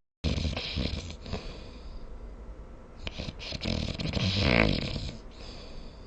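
A person snoring in their sleep: two long snoring breaths, the second louder, turning into a buzzing, rattling tone near its peak about four and a half seconds in.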